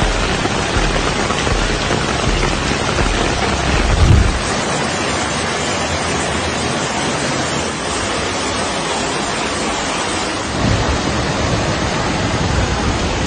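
Heavy rain: a loud, dense, steady hiss, with low thuds about four seconds in and again near the end.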